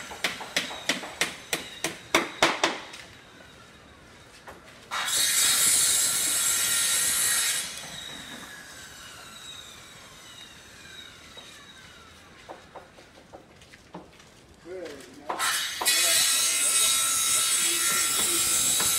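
Construction-site work: a quick run of sharp knocks, about three a second, then a power cutting tool (a saw or grinder) runs loudly for a couple of seconds. Its whine falls slowly as it spins down, and near the end it starts cutting again.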